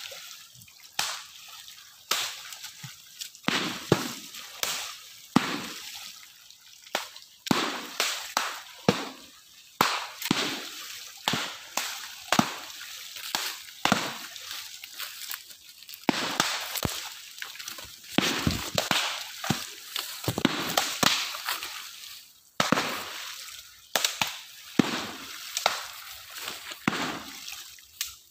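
Bamboo poles slapping down hard on shallow pond water again and again, each slap a sharp smack with a splash, one or two a second at an irregular pace: the water is being beaten to drive the fish toward a waiting net.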